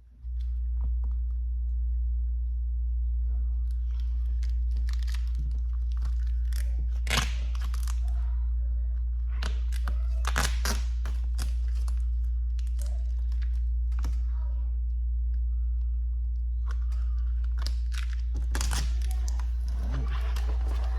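Vinyl wrap film crackling and crinkling in irregular bursts as it is worked by hand and tool over a car door handle. A steady low hum switches on just as it begins and runs underneath, the loudest sound throughout.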